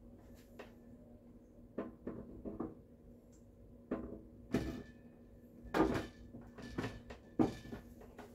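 Irregular wooden knocks and clacks from a painted wooden drop-side baby cot as the drop side's pins are worked into the end rail. About eight knocks, with the loudest two in the second half.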